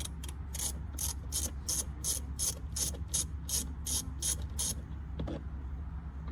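Hand ratchet clicking in even strokes, about three clicks a second, as it is worked back and forth to back out a door-panel screw. The clicking stops about three quarters of the way through.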